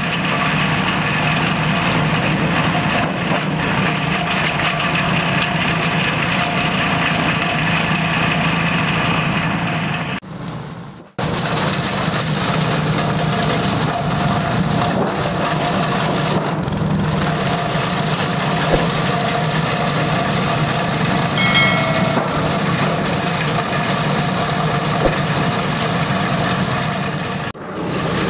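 Small stationary petrol engine running steadily under load, driving a plastic shredder that chops plastic oil bottles into flakes. The sound briefly drops away about ten seconds in and again near the end.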